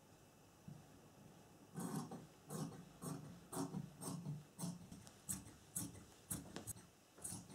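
Dressmaker's shears cutting through lining fabric, a steady run of snips about two a second that starts a couple of seconds in.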